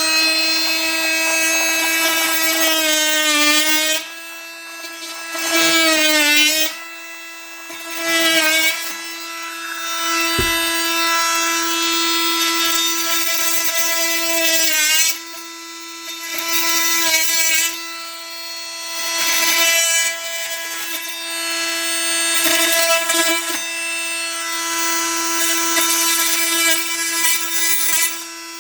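Milwaukee M12 cordless oscillating multi-tool running with a steady high whine, cutting into a drywall ceiling. Its pitch sags briefly several times as the blade bites, and it eases off for short moments in between.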